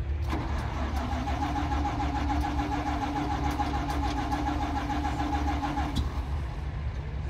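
A military half-track's starter motor cranks the engine with a steady whine and rapid, even pulses, then stops with a click about six seconds in. A steady low rumble runs underneath.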